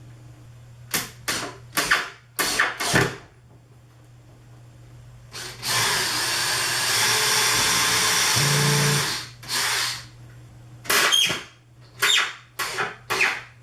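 Power drill run in several short trigger bursts, then one longer run of about three and a half seconds near the middle, then more short bursts, working on the MDF panels of the box.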